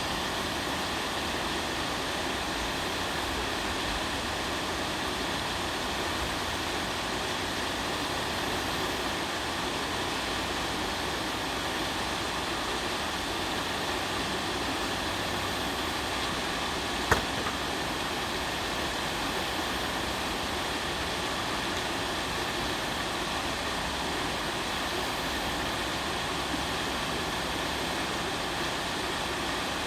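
Steady rushing of river water, an even unbroken wash of noise. A single sharp click about seventeen seconds in.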